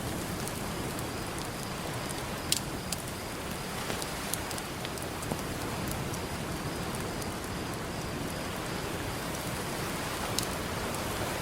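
Campfire crackling, with a few sharp pops, over a steady hiss of ocean surf.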